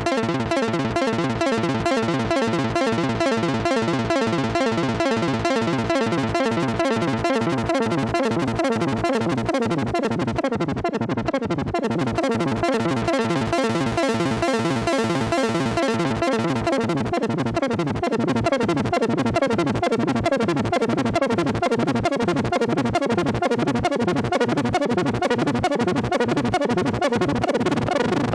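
Roland Juno-60 analog polyphonic synthesizer playing a fast run of rapidly repeating notes over a steady held tone.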